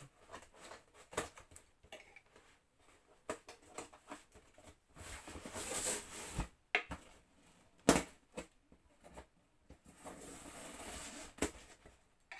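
Scissors cutting packing tape on a cardboard box, with scattered clicks and knocks and two longer stretches of scraping cardboard as the box is turned and handled. A single sharp knock a little before the eight-second mark is the loudest sound.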